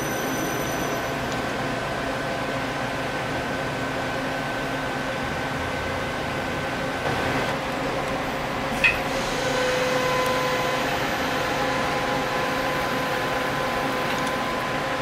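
Doosan/Daewoo Puma 2500LSY CNC lathe running: a steady mechanical hum with several whining tones that shift to a new set about halfway through. There is one short, sharp chirp near the middle.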